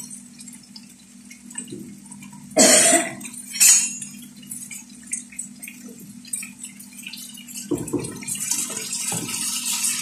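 Marinated chicken breast frying in a nonstick pan on a gas stove. In the last couple of seconds a fork and a metal slotted skimmer click against the pan as the pieces are turned, and the sizzling grows louder. Two short, loud bursts come about three and four seconds in.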